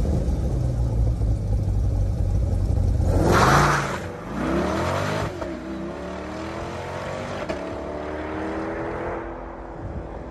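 C8 Corvette's V8 idling, then revving hard about three and a half seconds in and pulling away. Its pitch drops and climbs through gear changes as it accelerates off into the distance and fades.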